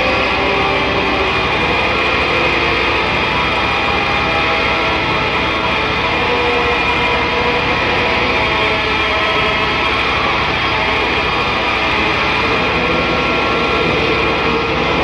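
Noise rock: a dense, unbroken wall of distorted guitar drone with many held tones layered together, steady in loudness throughout.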